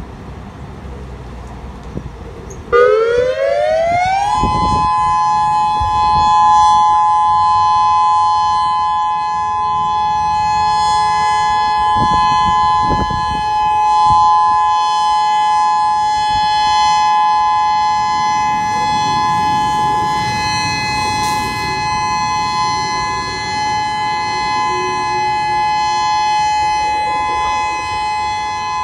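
Federal Signal Modulator 6024 electronic outdoor warning siren sounding its alert (steady) tone. About three seconds in it comes on with a quick rising glide, then holds two steady tones together. Before it starts there is only a low rumble of background noise.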